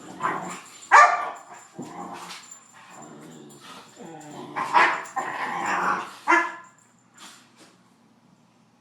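Dogs barking and growling in play, in short loud bursts, loudest about a second in and again around five seconds; it dies down near the end.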